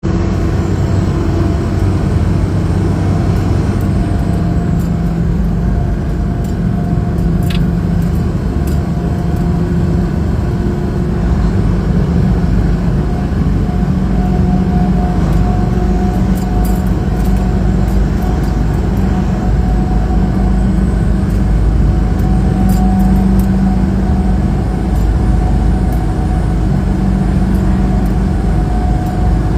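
Semi-truck driving along a highway: a steady engine drone under continuous road noise, with no gear changes or breaks.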